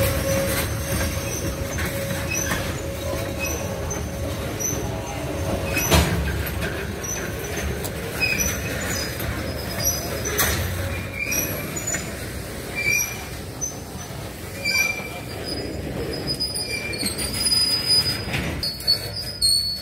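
Covered hopper cars rolling slowly past on the rails: steady wheel rumble with short high-pitched squeals from the wheels, and two sharp clanks about six and ten seconds in. The rumble thins toward the end as the last car goes by.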